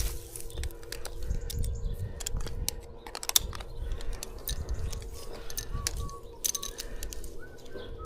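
Scattered metallic clicks and rustling of tree-climbing gear and rope being handled, over a low rumble. A row of short, faint chirps comes in over the second half.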